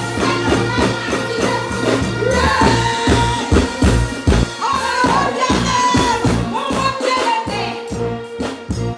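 Loud live concert music through a stage PA: a woman singing into a microphone over music with a steady, heavy beat, holding several long notes in the middle.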